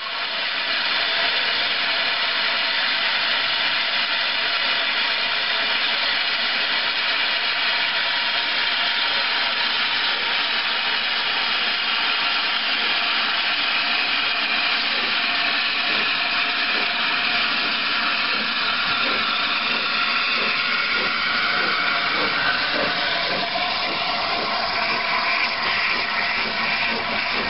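Steam locomotive 60163 Tornado, a Peppercorn A1 Pacific, hissing steam steadily, with several faint whistling tones running through the hiss, which shift slightly about three quarters of the way through.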